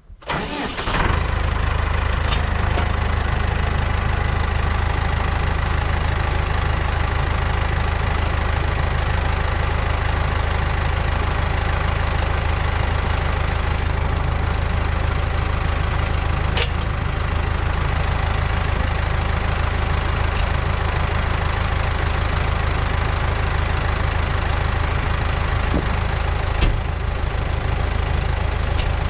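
A vehicle engine starts about half a second in and then runs steadily at an even speed, with a few faint clicks over it.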